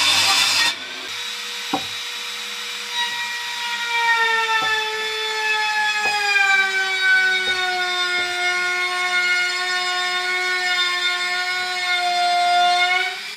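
A handheld trim router running and cutting along the edge of a wooden board: a steady high whine that drops slightly in pitch as it bites into the cut, with a few clicks, stopping abruptly near the end. It opens with a brief burst of a table saw cutting, cut off under a second in.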